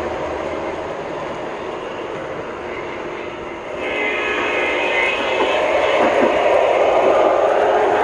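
Lionel O-gauge Amtrak Acela model train running along the layout track, a steady rolling rumble of wheels and motors. About four seconds in, the sound changes and gets louder, with a brief high whine.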